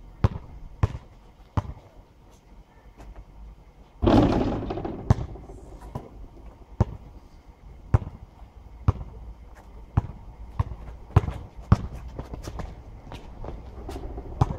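Basketball being dribbled on an asphalt court, a sharp bounce roughly every second, coming faster in the later part. About four seconds in, a loud rushing noise starts suddenly and fades over a couple of seconds.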